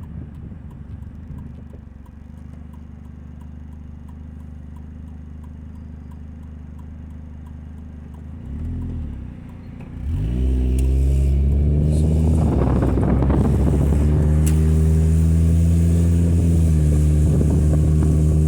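2000 Nissan Altima's four-cylinder engine under way, a low steady hum at first, then about ten seconds in a sudden much louder, deep drone as the throttle opens: the noise of a leaking exhaust, which quiets when the gas is released.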